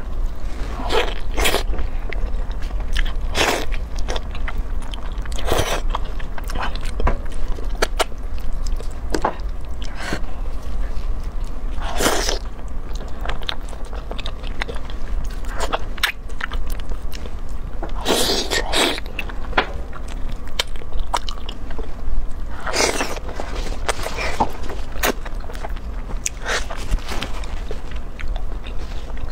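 Close-up biting and chewing on braised pork trotter, with sharper mouth sounds every one to three seconds over a steady low hum.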